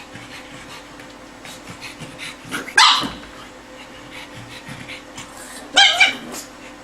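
A pug barking in short calls: one sharp bark about three seconds in, then two more in quick succession near the end.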